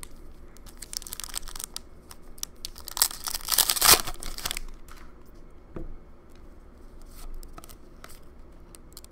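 A foil-wrapped trading card pack crinkling as it is handled, then torn open with a loud rip about three to four seconds in, followed by quieter rustling as the cards are handled.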